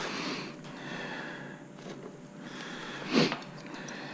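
Handling noise of a replacement brush being fitted into an upright vacuum's head by hand, with one short, louder sound about three seconds in.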